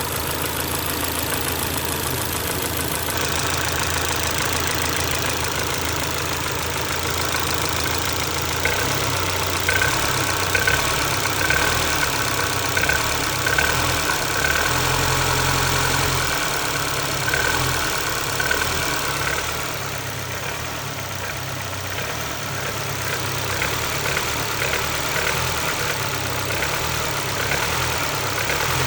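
Ford Focus Mk2 1.6 engine idling, then blipped several times through the middle stretch, with short sharp knocks on the blips before it settles back to idle. The knock on blipping the throttle is the unexplained fault the owner is asking about.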